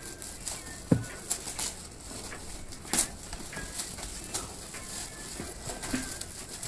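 Shiny metallic foil gift wrap crinkling and ripping as it is pulled off presents by hand, in irregular rustles and sharper rips, with a louder thump about a second in.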